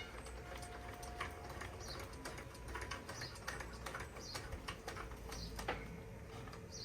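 Retractable awning being wound in by its hand-cranked gear (reduction) mechanism: faint irregular clicking and ticking, with a short high squeak about once a second.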